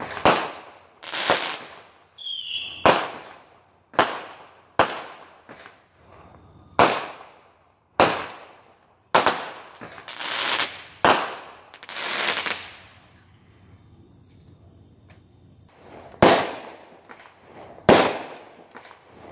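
Fireworks going off in a rapid series of sharp bangs about a second apart, each trailing off in an echo among the houses. After a lull of a few seconds the bangs start again near the end.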